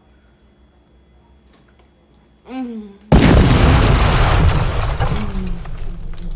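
A woman's short hum, then about half a second later a sudden, very loud noise that drowns it for about three seconds and slowly fades, with her humming going on beneath it.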